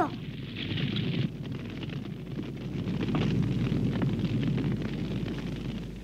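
A house fire burning: a dense low rumble packed with crackles, growing louder in the second half.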